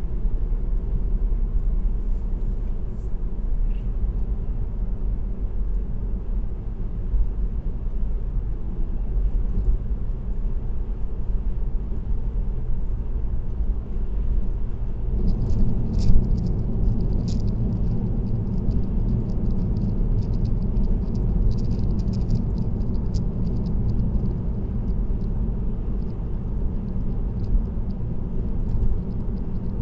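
A car cruising on an expressway: steady tyre and road noise with a low rumble. About halfway through the noise gets louder, and a light, fast rattling joins in and carries on.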